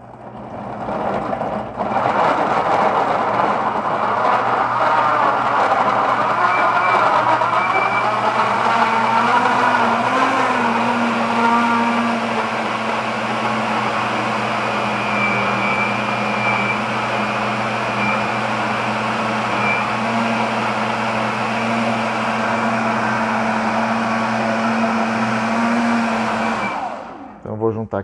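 Britânia BLQ1350 Turbo Inox 1200 W blender motor easing up to speed with its soft start, then running steadily as its six blades chop chunks of carrot into oil and eggs. The sound settles slightly quieter and smoother about twelve seconds in as the mix turns liquid, then the motor cuts off a second before the end.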